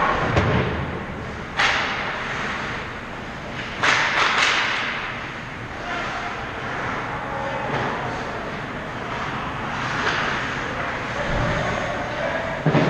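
Ice hockey play on an indoor rink: skate blades scraping and carving on the ice, with a low thump right at the start and sharp, harsh scrapes of ice about one and a half and four seconds in.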